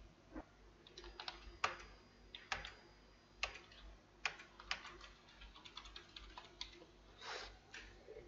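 Faint computer keyboard typing: irregular single keystrokes and short quick runs as numbers are entered into a spreadsheet.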